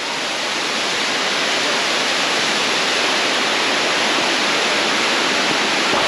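Waterfall rushing, a steady dense noise of falling water that grows a little louder over the first second and then holds even.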